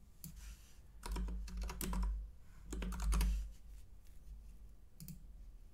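Typing on a computer keyboard: two short runs of keystrokes, about a second in and again around three seconds in, with a single key click near the end.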